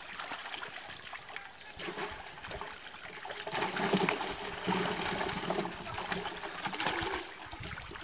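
Water splashing and trickling as a wet fishing net is hauled and handled in shallow pond water and fish are picked out of it by hand.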